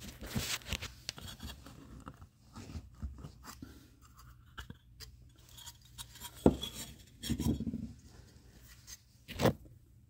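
Handling noises from working the metal cover off an old car alarm horn: scraping and rubbing with scattered small clicks, and a few louder short knocks in the second half.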